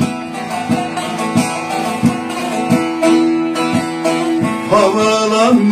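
Bağlama (long-necked Turkish saz) playing an instrumental passage between verses: a plucked melody with a strong stroke about every two-thirds of a second. A man's singing voice comes back in near the end.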